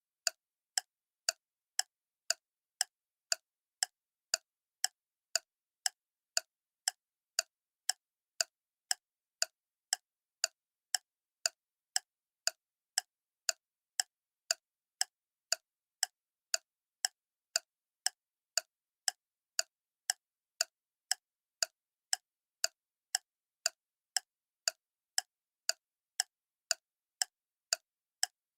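Clock ticking steadily, about two sharp, even ticks a second with clean silence between them.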